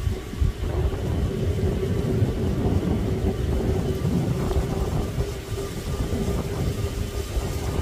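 Distant Boeing 737 MAX 8 jet engines (CFM LEAP-1B) running with a steady hum over an uneven low rumble.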